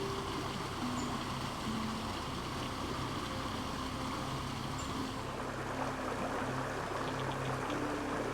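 Creek water flowing steadily, with slow background music of long held notes, changing pitch every second or so, playing over it.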